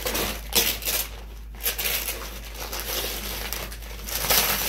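Wrapping paper on a gift box being torn and crinkled, in irregular bursts of rustling that are loudest about half a second in and again near the end.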